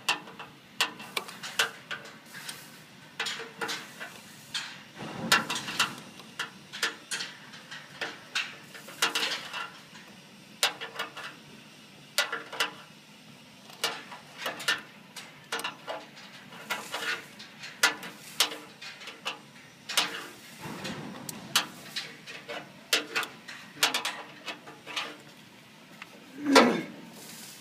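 A steel combination spanner clinking against the battery terminal nut and bolt as it is worked round and repositioned, in irregular sharp metal clicks, with a louder knock near the end.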